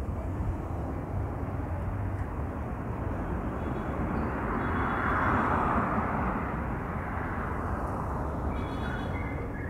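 Steady noisy rush of a large outdoor bonfire with a crowd around it, swelling a little about halfway through.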